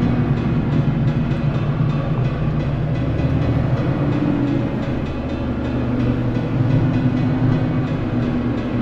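Case combine harvester running steadily, a continuous machine drone with a low hum.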